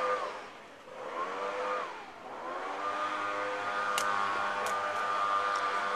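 An engine running, its pitch dropping away and climbing back twice in the first few seconds, then holding steady. Over it, a few sharp smacks of the takraw ball being kicked, the first about four seconds in.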